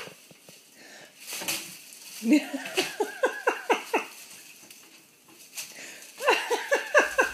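A person laughing in two bursts of rapid, falling "ha-ha" syllables, the first about two seconds in and the second near the end, with the crinkle of a plastic bag caught on a cat.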